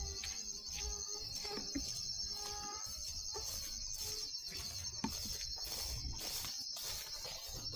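Insects trilling steadily in a high, pulsing chorus, with scattered faint clicks and knocks.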